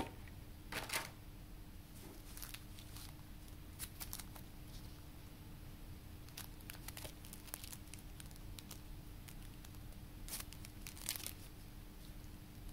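Paper booklets and a cellophane-wrapped postcard set being handled on a table: light rustling and plastic crinkling, with louder crinkles about a second in and again near the end.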